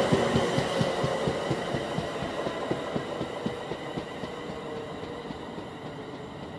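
Train running past and receding along the line, its wheels clicking rapidly over rail joints as the sound steadily fades away.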